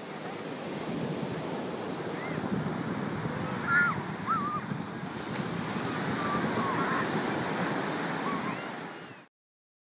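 Ocean surf breaking and washing over coastal rocks, a steady rush of water, with a few short bird calls above it. The sound cuts off suddenly about nine seconds in.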